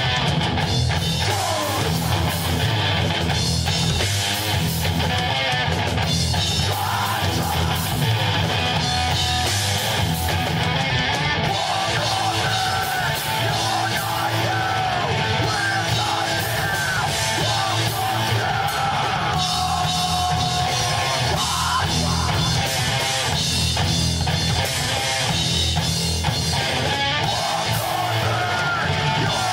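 Live rock band playing loud and without a break: distorted electric guitar, bass and drum kit, with yelled vocals over the top.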